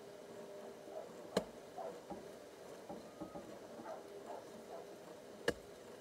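Manual push plow being worked through dry soil: two sharp clicks about four seconds apart, with faint short squeaks between them.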